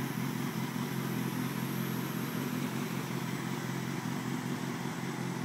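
1990 Ford Aerostar van's V6 engine idling steadily, a low even hum.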